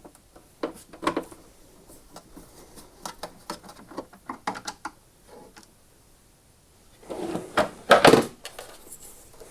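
Screws being undone and plastic lawnmower housing parts being handled: irregular light clicks and knocks, then a louder clatter and scrape of plastic parts a little past halfway.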